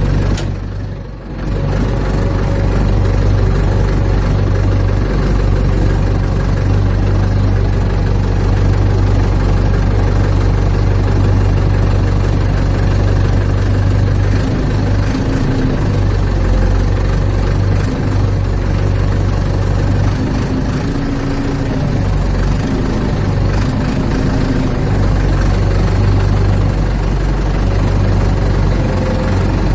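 Ford 755 backhoe engine running steadily, with small rises and falls in pitch in the second half.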